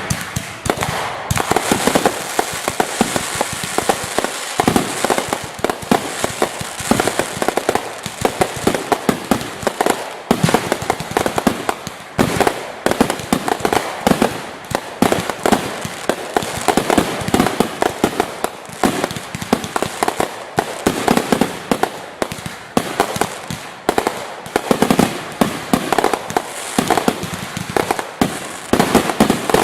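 Fireworks finale: a dense, continuous barrage of aerial salutes and cake shots banging in rapid succession, with crackle in between.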